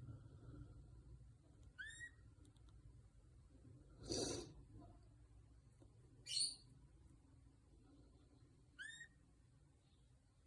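Canary giving short, sharp single call notes, three of them spread over several seconds, one sweeping downward in pitch. A brief rustle about four seconds in.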